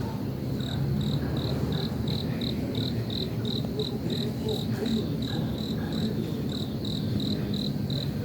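Cricket chirping in a steady rhythm, about three short high chirps a second, over a continuous low rumble.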